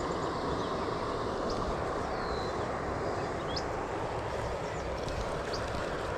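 Steady rush of water pouring out through a lake outflow, with a few short high chirps over it.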